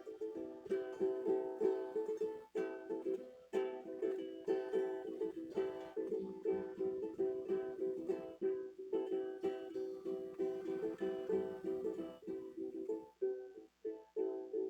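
A guitar strummed in a steady rhythm of chords, with no singing, thinning out near the end.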